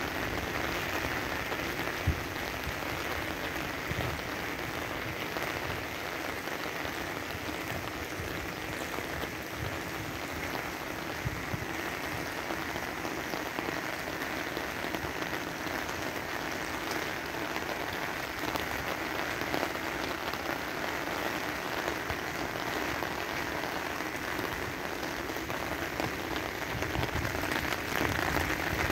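Heavy rain falling steadily on an umbrella overhead and on the lake's surface.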